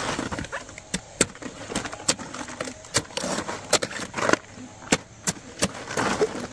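Irregular sharp knocks and clatter of hard objects, about two a second.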